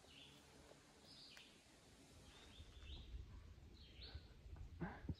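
Near silence with faint wild birds chirping, short high calls about once a second, and a soft knock near the end.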